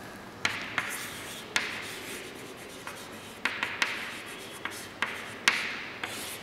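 White chalk writing on a chalkboard: a string of sharp taps and short scratchy strokes as a word is written out.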